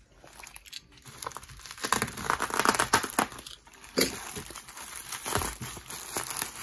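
Bubble wrap and a thin plastic bag crinkling as they are unwrapped and pulled open by hand. The crinkling starts about a second in and goes on in irregular bursts.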